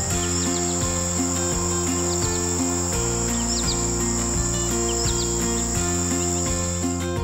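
Steady high-pitched insect trill over background music of sustained low notes that change every half second or so, with a few short, high rising chirps. The trill cuts off abruptly just before the end, leaving the music.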